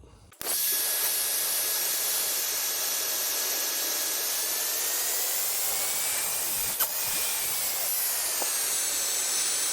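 Electric hot air gun switched on about half a second in and running steadily, a blowing hiss with a high motor whine that rises slightly and falls back midway, heating a connector block. There is a single small click partway through.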